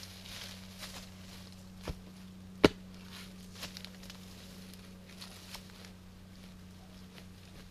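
A few sharp knocks, the loudest about two and a half seconds in, with lighter ticks and rustling steps between them, over a steady low hum.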